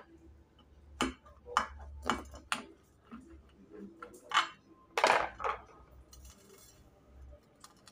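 A knife cutting a seeded loaf in a glass baking dish, then the pieces handled: a string of sharp clicks and knocks of the blade and bread against the glass, the loudest about five seconds in.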